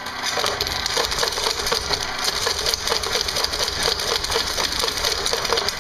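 Mechanical power hammer running and striking a steel bar held on its anvil, a steady run of blows at about four a second.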